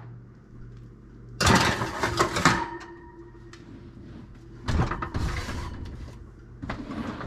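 A hot kitchen oven is opened and a metal cookie sheet carrying a pair of ski boots is slid onto the oven rack. About a second and a half in there is a metallic clatter with a short ringing that dies away, and there is a second scraping clatter of the tray on the rack about five seconds in.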